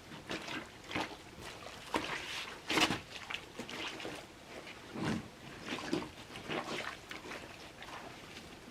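Wet mud being squished and splatted as a foley sound effect: a string of irregular squelches, with louder ones about three seconds in and about five seconds in.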